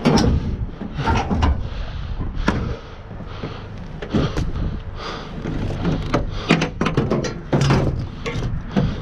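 Hollow sheet-metal bangs, clunks and scrapes as a washing machine is shoved and dropped into a car trunk onto scrap metal: a string of sharp knocks and thumps, the loudest right at the start.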